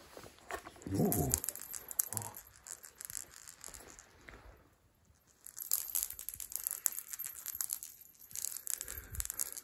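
Cat wand toy rattling as it is jiggled and dragged over a rug: dense runs of small clicks, briefly about a second in and then steadily from about halfway through.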